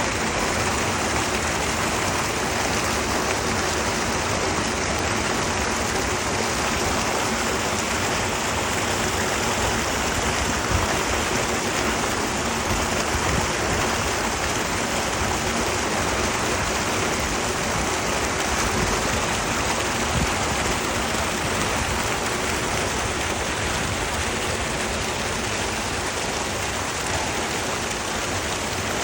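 Water rushing steadily along a waterway after a typhoon.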